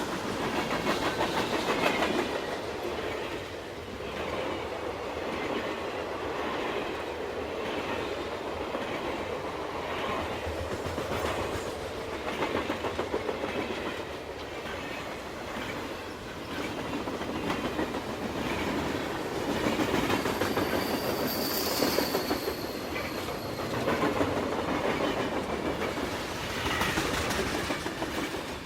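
A vehicle moving along, with a steady rumble and dense irregular clicking and rattling; a brief high squeal about 22 seconds in.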